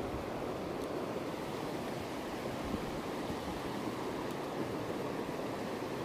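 Shallow rocky stream running over stones: a steady rush of water.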